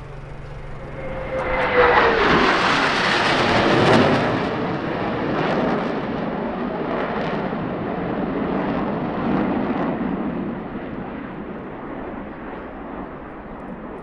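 Blue Angels F/A-18 Hornet jet flying past: the engine whine drops in pitch as it goes by about two seconds in, the loudest part, then the engine rumble lingers and slowly fades.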